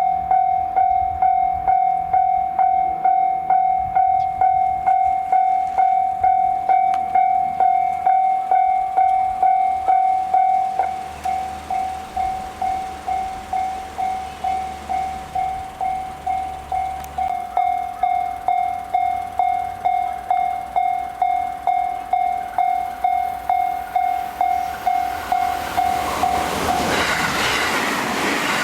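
Japanese level-crossing electronic warning bell starting abruptly and ringing about twice a second in a steady pitched clang, dropping in volume about eleven seconds in. Near the end the rush and wheel clatter of a JR Hanwa Line train approaching at speed rises as the bell falls silent.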